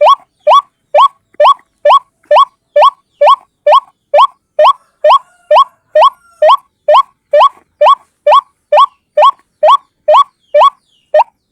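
White-breasted waterhen (ruak-ruak) calling: one bird repeats a short, upward-sliding note about twice a second in a steady, unbroken series.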